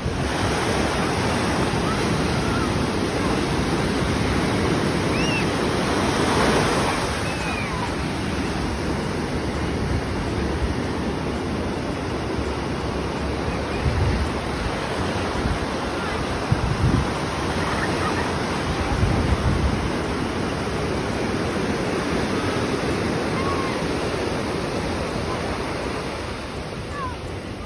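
Ocean surf breaking and washing up the shore in a steady rush that swells about six seconds in. A few short low thumps come in the middle stretch.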